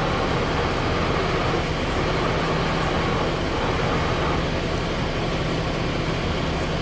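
Kitamura MyCenter HX1000i horizontal machining center running over a steady hum, its Z axis traversing with a faint servo whine that fades out about four seconds in.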